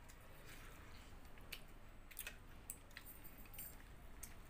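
Faint eating sounds: chicken curry and rice being chewed and handled by hand, with a few soft clicks scattered through.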